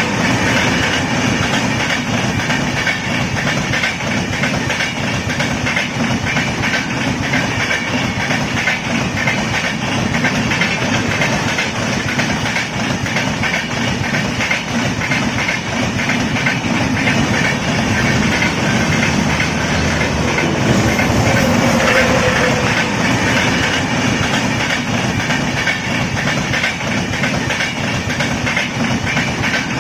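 Indian Railways train running along the track: a steady rumble with a repeated clatter of wheels over rail joints.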